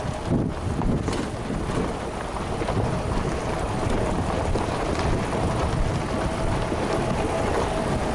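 Off-road 4x4 driving on a rough mountain dirt track, with wind buffeting the microphone: a steady rumble and rushing noise, with a faint steady whine that is clearer in the second half.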